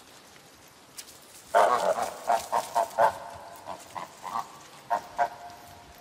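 Domestic goose calling in a run of about a dozen short honks, starting about a second and a half in, the first the loudest.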